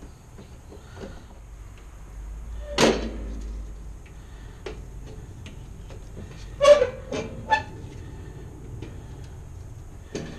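Sharp knocks and clatter of hand tools and hands working on a breaker panel's sheet-metal cover: one knock about three seconds in, then three in quick succession around seven seconds in.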